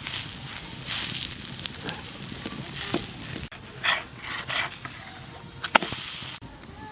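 Food sizzling as it cooks, in uneven hissing bursts with a few sharp crackles. It cuts off abruptly twice, about three and a half seconds in and again near the end.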